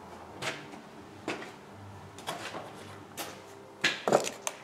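Metal tools and chainsaw parts being picked up and set down on a workbench: a string of separate clinks and clunks, about seven, the loudest few near the end.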